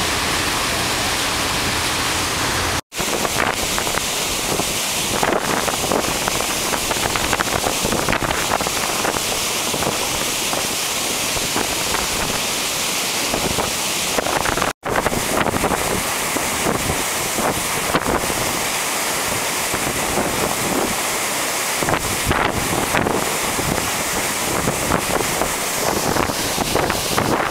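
Wind blowing across the microphone over the rush of water churned up by the SS Badger car ferry, its wake and then its bow wave breaking along the hull. A steady low hum is under the first few seconds, and the sound drops out briefly twice at cuts.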